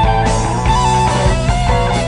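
Rock band music: a lead guitar line with held, bending notes over bass and drums.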